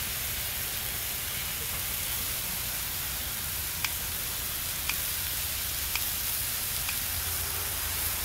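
Meat sizzling steadily on a hot round grill pan, with a few light clicks about a second apart in the second half.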